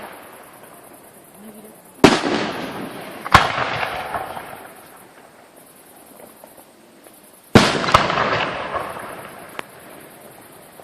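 Fireworks display: aerial shells bursting with four sharp bangs, two about a second apart near the start and two in quick succession past the middle. Each bang is followed by a rolling echo that dies away over a few seconds.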